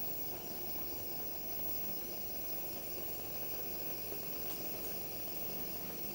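Coleman 220K white-gas pressure lantern hissing steadily as pressurized fuel vapour feeds the burner.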